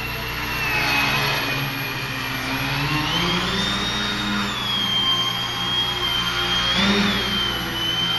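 Electric RC plane's Hacker A10-15S brushless motor and propeller whining as the throttle is worked. The pitch rises about three seconds in, eases off and briefly climbs again near seven seconds, as the plane is held in a nose-up hover.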